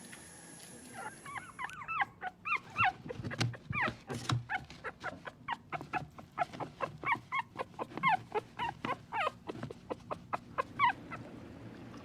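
An animal giving a long run of short, high-pitched calls, many of them sliding up or down in pitch, several a second for about ten seconds.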